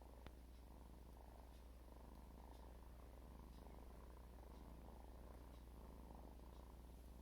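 A cat purring steadily, with a faint click near the start.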